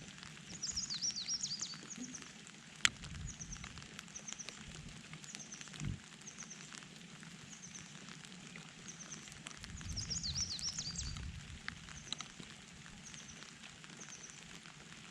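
Light rain pattering, with songbirds calling: a short high chirp repeated about every second, and two brief warbled song phrases, one near the start and one about ten seconds in. Low rumbles swell and fade beneath, and a single sharp tick sounds about three seconds in.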